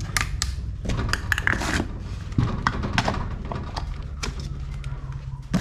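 Scattered light clicks and knocks of parts being handled, irregular and unevenly spaced, over a low steady hum.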